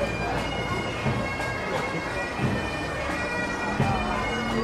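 Bagpipes playing a tune over their steady, unbroken drones.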